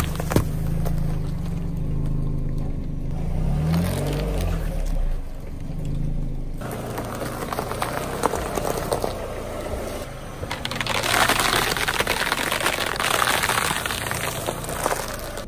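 Car engine running slowly, its pitch briefly rising about four seconds in, then a car tyre crushing hard-shelled chocolate candies and dry spaghetti with a dense run of crunching and crackling that is loudest near the end.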